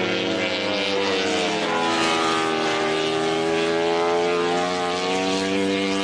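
A MotoGP racing motorcycle's four-stroke engine running at high revs, a loud sustained note that drops a little in pitch over the first second or so, then holds steady with small rises and falls.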